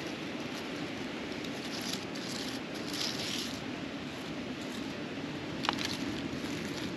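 Steady rushing outdoor noise, with a spell of brighter rustling about two to three and a half seconds in and one sharp tick near six seconds.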